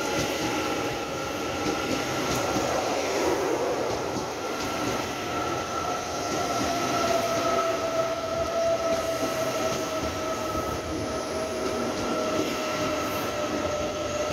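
Taiwan Railway EMU801/802 electric multiple unit pulling into the station: a steady rolling rumble with a thin whine that falls slowly in pitch as the train slows.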